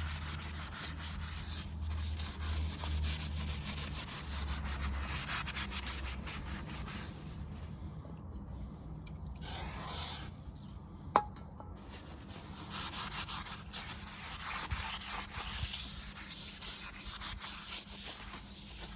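Hand scrubbing the face of a new brake disc to clean it: a quick, steady rasping rub with brief pauses, and one sharp click about eleven seconds in.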